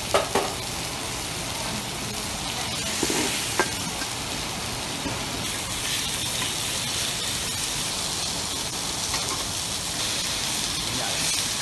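Food frying on a teppanyaki steel griddle: a steady sizzle, with a few sharp clicks near the start and again about three seconds in.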